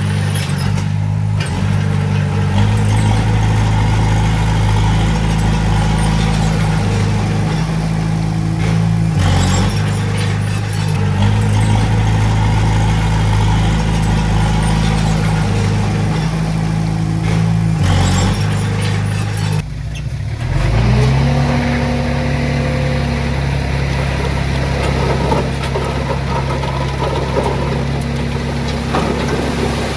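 Heavy-equipment diesel engine running under load, its pitch shifting now and then. About twenty seconds in it drops away briefly, then rises to a new steady pitch.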